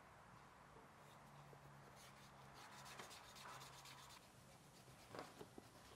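Near silence, with faint rubbing about halfway through and a few light taps near the end.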